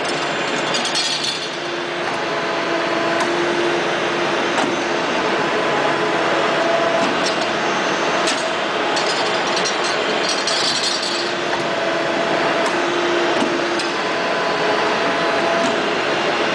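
Three-axis CNC hydraulic tube bender running: a steady hydraulic-pump noise, with a hum that comes and goes every few seconds as the axes move, and scattered sharp clicks.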